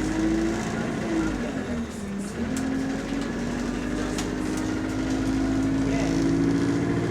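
Diesel engine of bus GAL SE101 heard from inside the cabin, its pitch dropping to a low point about two seconds in, then climbing steadily as the bus pulls away again. This is the engine the uploader describes as having rod knock.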